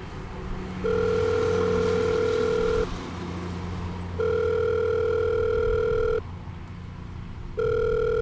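Telephone ringback tone heard while a call rings out: a steady beep of about two seconds, repeated three times with pauses of just over a second between them. A low steady hum runs underneath.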